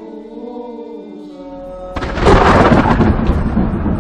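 Held choral singing, then a sudden loud thunderclap about halfway through that rolls on as a heavy rumble.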